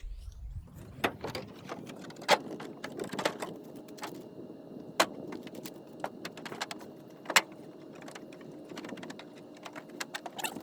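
Plastic truck bed liner being worked into a pickup bed: scraping and rubbing with sharp knocks and clicks, the loudest about two, five and seven seconds in.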